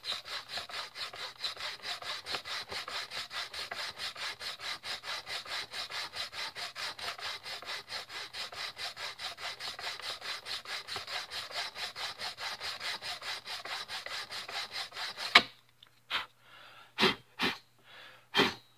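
Sanding block rubbing back and forth over the end of a polyester Habasit F1 belt in a bonding jig, in long, even strokes about four a second, grinding the splice's wedge bevel down to the base plate. The sanding stops suddenly about fifteen seconds in and is followed by a few sharp knocks and clicks.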